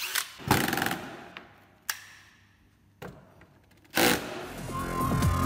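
Cordless drill briefly driving a 32 mm wood screw into a pine cleat, about half a second in, followed by two sharp clicks. Electronic music comes in near the end.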